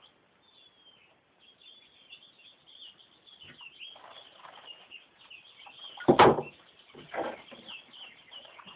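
Many faint, short bird chirps and calls, with a short loud knock about six seconds in and a few softer handling knocks around it.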